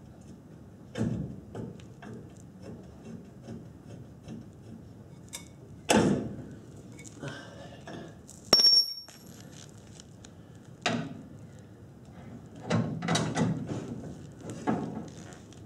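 Scattered clunks and knocks of heavy steel suspension parts and hand tools being handled while a front brake and upright assembly is fitted, with one sharp metallic clink and a brief high ring about halfway through.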